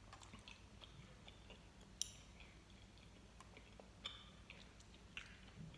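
Faint chewing of a soft gummy candy, with a few small sharp clicks, the clearest about two seconds in and again about four seconds in.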